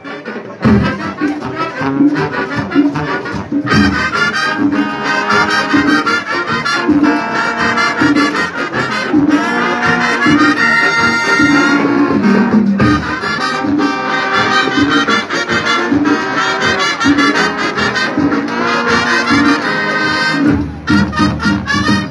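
Marching band playing a Latin tune, trumpets and trombones carrying the melody over a steady beat.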